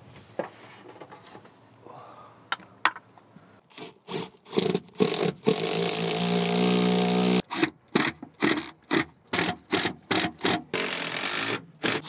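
A few light clicks, then a cordless drill runs: a steady spin of about two seconds, a quick run of short trigger bursts, and another brief spin near the end, driving fasteners into a truck center console's metal mounting bracket.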